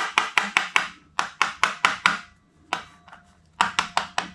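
Rapid sharp metallic clicks, about five a second, in several runs broken by short pauses, from a hand tool at work on the engine's top end.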